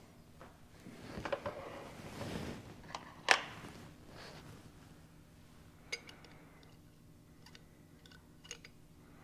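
Small metal parts and hand tools clinking and scraping on a workbench during a diesel injection pump teardown: a rustling scrape for a second or two, one sharp clink about three seconds in, the loudest sound, then scattered light ticks.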